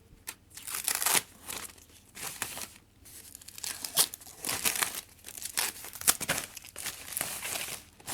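Packaging being handled during an unboxing, crinkling and tearing in irregular rustles.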